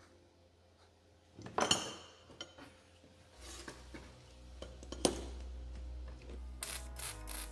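A few clinks and knocks of small hard objects being handled, with a steady low hum coming in partway through.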